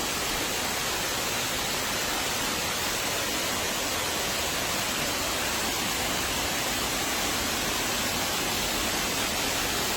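Several waterfalls pouring: a steady, even rush of falling water.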